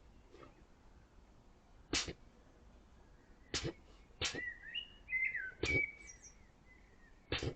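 Wild boar sneezing: five short, sharp nasal blasts at irregular intervals.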